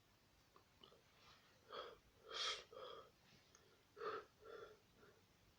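A person sneezing repeatedly, with sharp gasping breaths between: five short bursts in two clusters, the loudest about halfway through.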